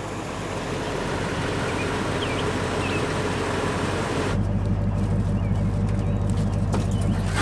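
Steady noise of idling vehicle engines. From about four seconds in it changes to a louder, deeper, steady idling hum from a nearby pickup truck's engine.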